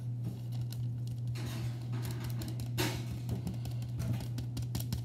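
A kitchen knife cutting raw dough on parchment paper against the counter: a run of light taps, clicks and scrapes, starting about a second and a half in. A steady low hum runs underneath.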